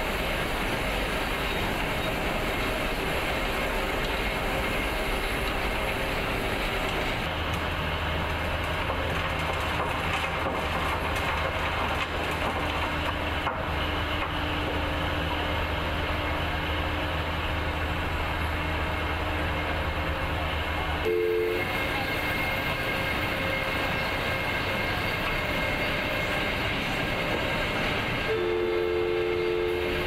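Continuous loud noise of heavy tunnelling machinery: a roadheader's spinning cutting head grinding into rock, with tunnel vehicles running. The sound changes character about 7 and 21 seconds in, and a short two-note tone sounds around 21 seconds and again near the end.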